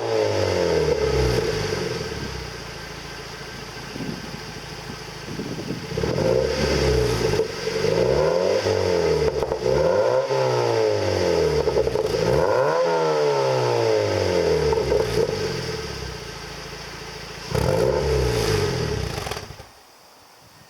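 Exhaust of a Mazda Roadster (NC MX-5) with a 2.0 L four-cylinder, running through an RS Factory Stage NC 2-inch exhaust whose centre-pipe sub-silencer is replaced by a straight pipe. The engine drops back to idle, then is revved up and let fall back about five times, idling in between, and cuts off near the end.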